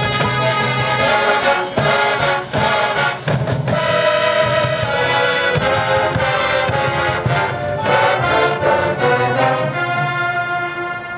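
High school marching band playing: full brass chords over drums, with sharp percussion hits punctuating the music, then the band settling onto a held chord about ten seconds in.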